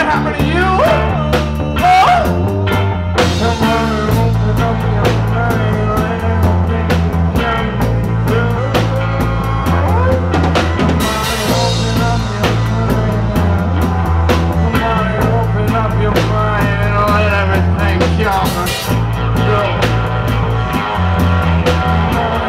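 Reggae band playing live, with a drum kit and a bass line that holds each note for a second or two.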